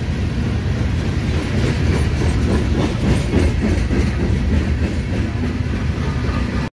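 Freight train rolling past, a steady rumble that cuts off suddenly near the end.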